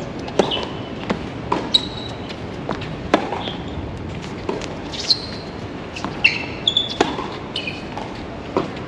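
Tennis rally on a hard court: a serve about half a second in, then a string of sharp racket hits and ball bounces, about eight in all, with short high shoe squeaks on the court surface between them.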